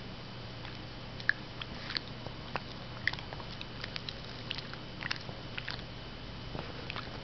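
Shih Tzu chewing a Cheerio: a run of small crisp crunches and clicks at uneven intervals, starting about a second in.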